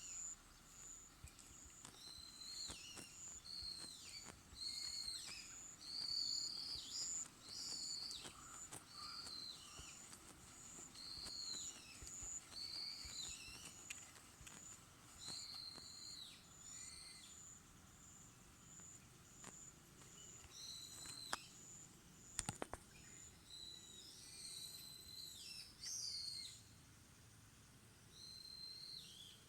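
Wild birds calling over and over outdoors, short high calls about a second apart with gaps. Under them a steady high note pulses about twice a second. A few sharp clicks come about three-quarters of the way through.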